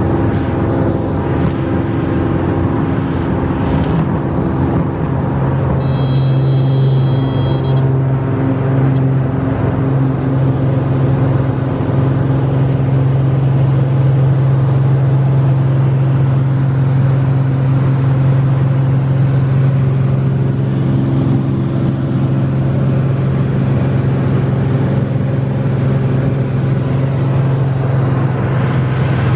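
Light aircraft's piston engine and propeller at takeoff power, heard from inside the cockpit: a loud, steady drone through the takeoff and climb. A brief high beep sounds about six seconds in.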